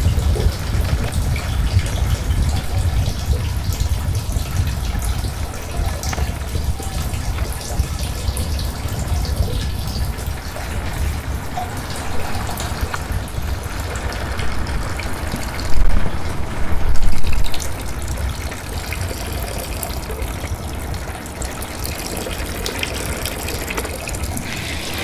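Steady rush of wind on the microphone over the rumble of longboard wheels rolling on asphalt at downhill speed, with two short louder gusts about two-thirds of the way through.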